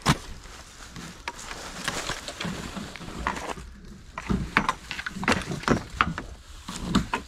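Metal-tube frame of a folding patio chair being wrenched apart by hand: irregular clanks and clicks of the tubing, coming thickest in the second half, with rustling of the fabric cushion in between.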